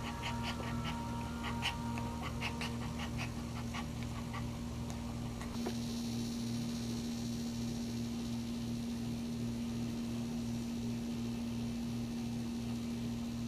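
A Maltese in labor whimpering in short, high squeaks, several a second, which die away about four seconds in. A steady electrical hum runs underneath throughout.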